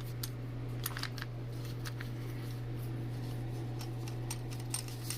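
Light metallic clicks and taps of engine parts and tools being handled during a teardown, a few at a time, over a steady low hum.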